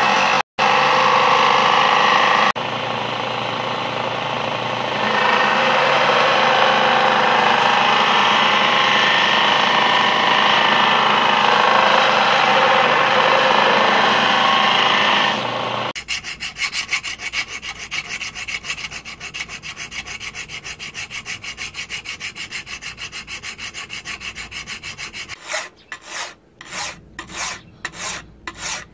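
Belt grinder running as a steel knife blade made from plow parts is ground against its abrasive belt, a loud steady hiss. About sixteen seconds in this gives way to a hand file rasping across the blade in quick, even strokes, which slow to separate strokes near the end.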